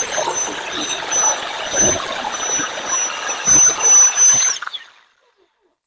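Jigsaw cutting through thin 3-ply plywood: a steady high motor whine over the rasp and chatter of the blade. It is switched off about four and a half seconds in, the whine dropping in pitch as it stops.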